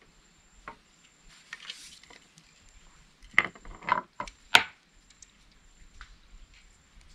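Handling of a fishing rod in a small boat: a few sharp knocks and clatters against the boat's side about three to four and a half seconds in as the rod is picked up, with sparse small clicks around them.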